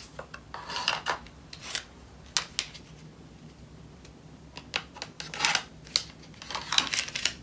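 Small plastic diamond-painting trays handled and wiped: scattered light clicks and short rubbing rustles of plastic.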